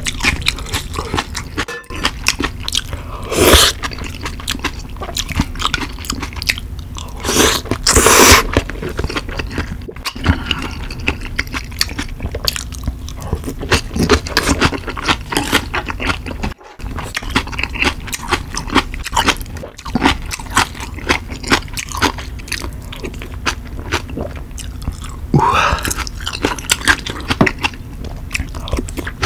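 Close-miked eating of spicy kalguksu noodles and cabbage kimchi: steady chewing and wet mouth clicks, broken by a few louder slurps of noodles and broth.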